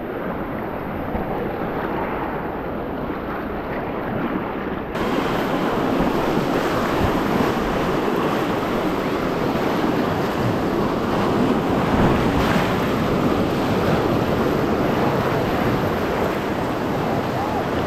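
Rushing whitewater of river rapids splashing around an inflatable kayak, with wind on the camera microphone. The rush steps up louder about five seconds in.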